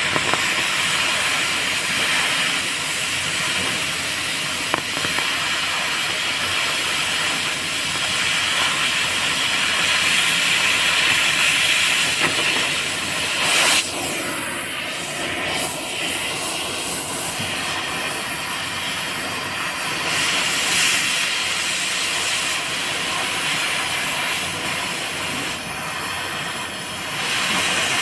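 Oxy-fuel gas cutting torch hissing steadily, with a short sharp burst about halfway through.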